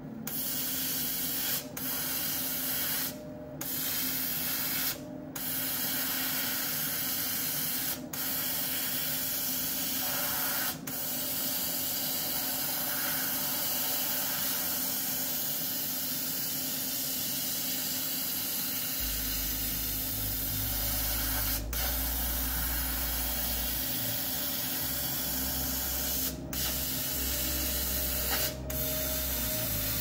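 Air-assist jet hissing steadily at the nozzle of a CO2 laser cutter's head as it cuts plywood. The hiss briefly drops out several times. A low steady hum joins about two-thirds of the way in.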